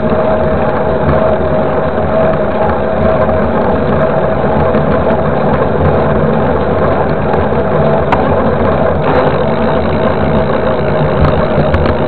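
Steady wind and road noise from a 29-inch-wheel mountain bike rolling along asphalt, picked up by a camera mounted right beside the tyre. A constant hum runs through it, and a single click comes about eight seconds in.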